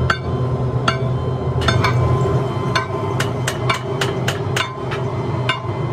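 Long steel bars clanking against a belt-driven centrifugal casting mould on its rollers: about a dozen sharp metallic knocks at irregular intervals, quickest in the middle, over the mould drive's steady low drone.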